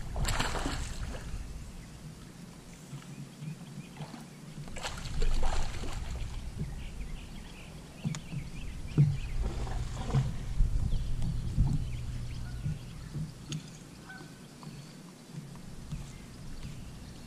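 Wind rumbling on the microphone, with a couple of louder gusts and a few small knocks.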